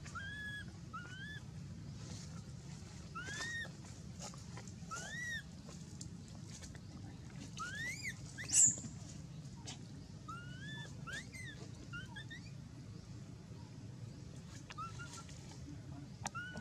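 Baby macaque giving short coo calls again and again, each one rising then falling in pitch, with one louder, sharper squeal about halfway through. A low steady hum runs underneath.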